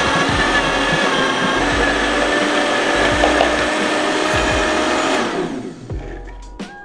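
Vitamix blender running, its blades grinding granulated sugar into powdered sugar. The motor is switched off about five seconds in and the sound fades away as it spins down, with a few small clicks near the end.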